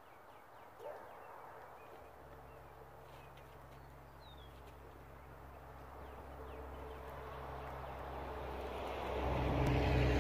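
An engine running steadily, growing louder over the last few seconds as it comes closer. Faint bird chirps and small animal sounds come through in the first few seconds.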